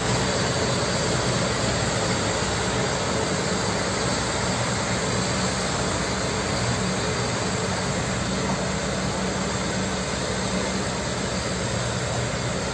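Kobelco SK200 excavator's diesel engine running steadily as the machine drives on its tracks.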